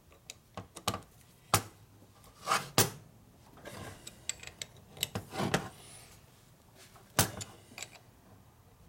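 Hex key working set screws in a steel tap-driver holder: scattered small metallic clicks and short scraping rubs, with three sharper knocks of metal on metal.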